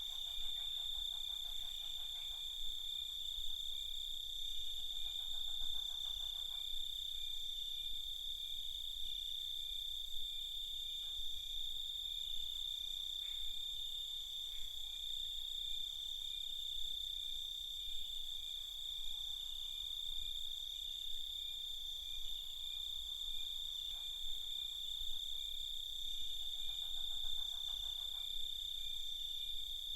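Night chorus of crickets: a steady, high-pitched trill that never lets up. Every several seconds a lower, pulsing call rises for a second or two over it.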